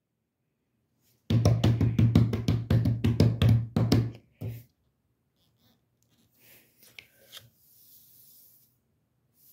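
Drumroll of quick knocks, about six a second for some three seconds, ending in a single separate hit, building suspense before a winner is announced. Faint clicks and rustles follow.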